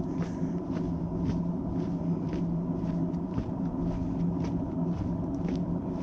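Footsteps of a walker on a trail at an even pace, about two steps a second, over a steady low mechanical drone with a constant hum.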